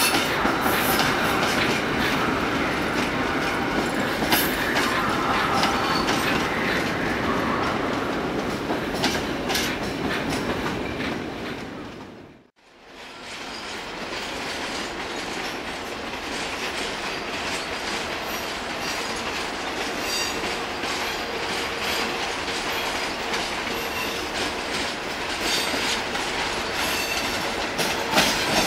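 Railway passenger coaches rolling past, wheels clicking over rail joints with some squeal, fading out about halfway. Then a Cisalpino ETR 470 tilting train running in over pointwork, its wheels clacking more closely spaced near the end.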